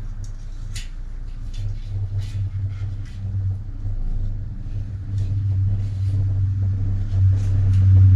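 A steady low rumble, growing louder in the last few seconds, under scattered light clicks and taps of hand work on a bicycle's front wheel.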